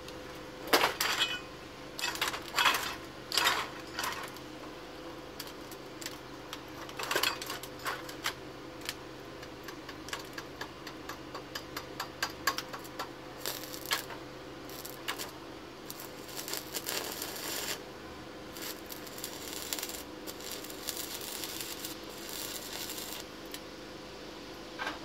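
Stick (arc) welding on a steel exhaust pipe: the arc struck again and again, crackling and sputtering in short runs, with loud sharp snaps in the first few seconds. A faint steady hum lies underneath.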